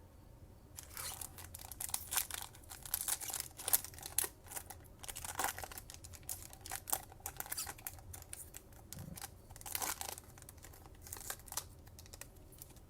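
Foil wrapper of a trading card pack being torn and crinkled in an irregular run of crackles, starting about a second in; the pack is hard to open.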